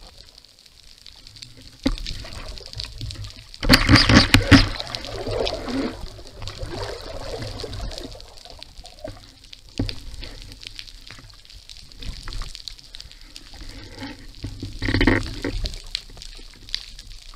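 Underwater sound from a speargun-mounted camera as the diver handles the gun's shooting line: a steady wash of water noise, a sharp knock about two seconds in and another near ten seconds, and two louder gurgling, pouring bursts about four and fifteen seconds in.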